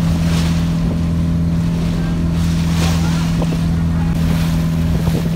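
Motorboat engine running steadily at one pitch, with water rushing past the hull and wind on the microphone.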